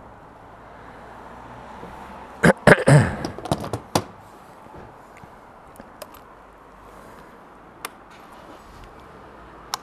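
Clicks and knocks of refuelling a motorcycle at a petrol pump, bunched together about two and a half to four seconds in, then a few faint single ticks.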